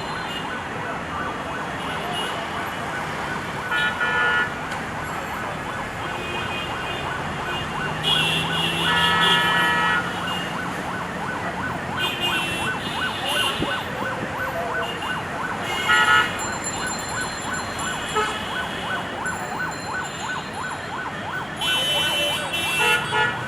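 Jammed road traffic: engines running under a steady noise of traffic, with repeated vehicle horn blasts and a siren sounding through it.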